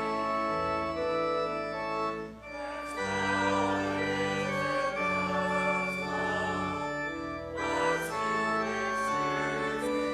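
Church organ playing slow, sustained chords in phrases, with short breaks between phrases about two and a half and eight seconds in.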